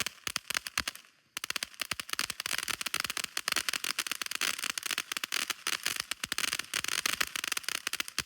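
Fireworks crackling: a dense, rapid stream of sharp pops and crackles. It drops out briefly about a second in, then resumes thicker and carries on.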